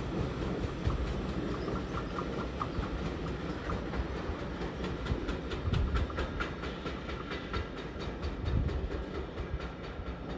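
Freight train wagons rolling past, wheels clicking rapidly over rail joints above a low rumble, slowly fading toward the end.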